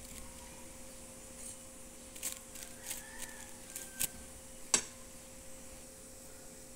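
Light, scattered taps and clicks from a metal fork pressing minced meat filling onto a wonton wrapper, the sharpest near the end, over a faint steady hum.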